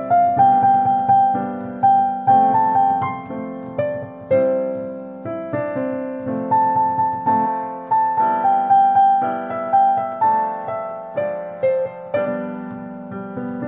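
Background piano music: a slow melody of struck notes over chords.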